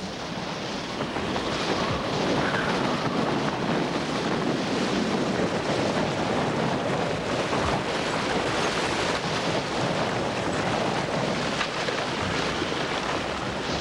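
Blizzard wind blowing steadily and gusting against the microphone, a continuous loud rush that builds over the first couple of seconds.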